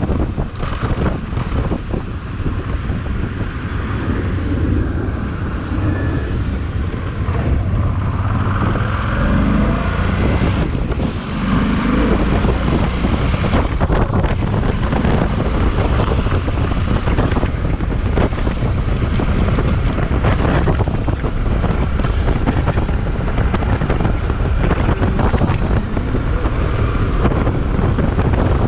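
A long freight train rolling past, a steady low rumble with frequent clacks from the wheels on the rails, and wind buffeting the microphone throughout.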